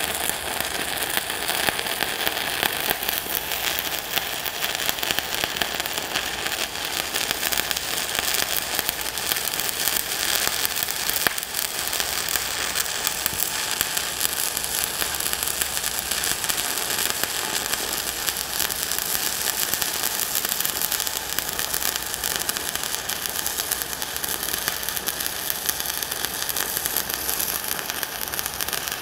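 Stick (SMAW) welding arc crackling steadily without a break, from a 3/32-inch 7018 electrode running a cover pass over a 6010 root at about 100 amps.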